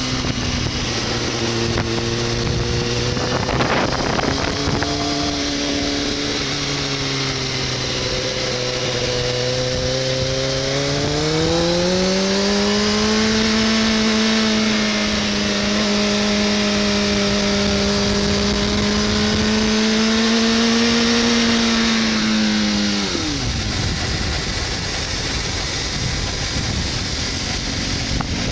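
Kawasaki sport bike engine heard from the rider's seat, with wind rushing over the microphone. The engine note sinks as the bike slows, holds steady, then climbs under throttle about eleven seconds in and holds high. About twenty-three seconds in it falls away, leaving mostly wind noise.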